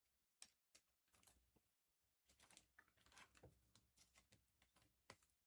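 Near silence with faint, scattered soft clicks and rustles of trading cards being handled and flipped during a pack opening.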